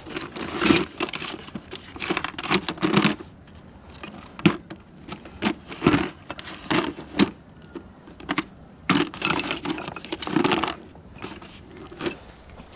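Small metal parts and hand tools clinking and rattling in irregular clusters as they are handled and set down.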